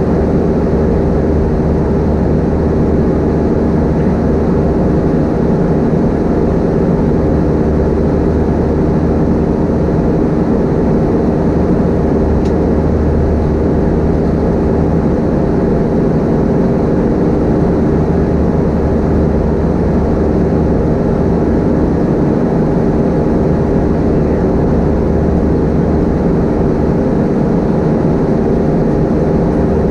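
Cabin noise of an Airbus A320-232 with IAE V2500 turbofans, heard from a window seat in flight. A steady, loud engine drone with several held low tones over rushing air noise, unchanging throughout.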